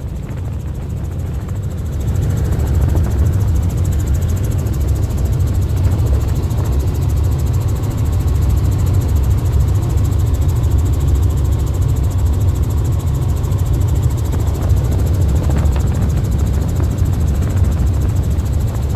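Helicopter cabin noise in flight: the engine and rotor make a steady, loud low drone, rising slightly about two seconds in.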